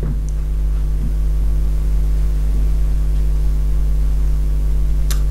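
Steady low electrical mains hum, with a faint click near the end.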